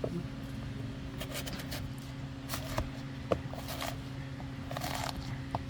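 A knife rasping and scraping in short, irregular strokes through a used oil filter's pleated paper element, with a sharp click about three seconds in, over a steady low hum.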